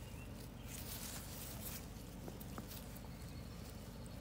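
Faint outdoor background noise with soft rustling in grass, a hazier spell about a second in, and a few faint clicks.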